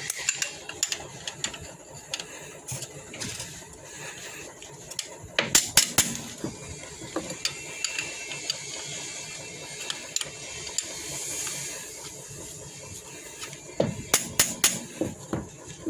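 Metal clicks and clinks of a wrench working on a bus diesel engine's fuel injector line, loosening one injector so trapped air can escape from the fuel-locked system before cranking. The clicks come in two quick runs, about five and a half seconds in and again near the end.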